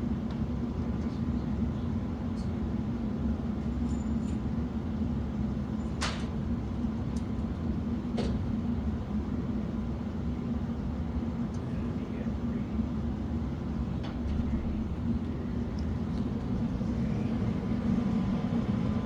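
Steady low mechanical rumble with a constant hum, broken by two sharp clicks about six and eight seconds in.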